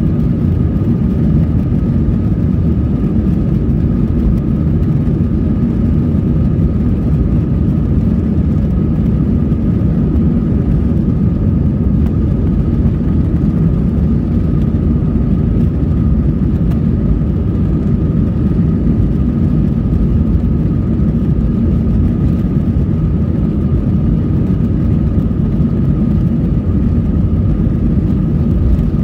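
Cabin noise of an Airbus A320-family jet airliner taxiing on the ground, its engines at low thrust: a steady low rumble with a faint steady whine above it.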